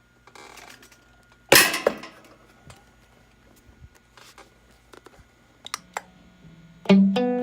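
Handling clicks and knocks on an electric guitar rig over a faint steady low hum, with one loud sharp crack about a second and a half in; near the end the electric guitar starts playing notes through the distortion pedal.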